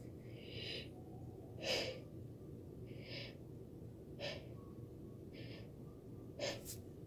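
Soft, short breaths close to the microphone, about six of them roughly a second apart, the strongest nearly two seconds in, over a low steady room hum.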